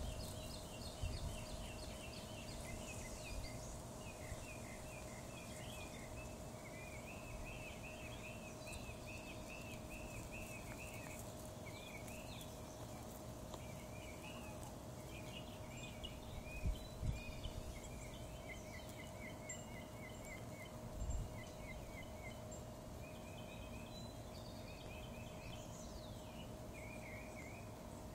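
Outdoor ambience of small birds singing in runs of short, quickly repeated chirping notes, over a faint steady hum. A few low thumps of handling noise on the phone's microphone come through, the loudest a little past halfway.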